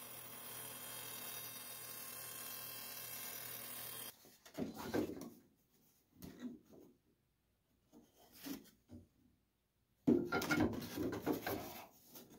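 A bandsaw running steadily for about four seconds, then stopping abruptly. After that, a thin plywood panel scrapes and knocks as it is pushed into a laser-cut plywood fuselage frame, with a louder run of rubbing near the end.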